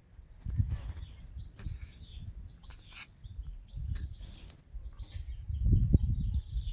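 A sick cat breathing heavily, in low rasping pulses about once a second that grow louder near the end, with birds chirping in the background.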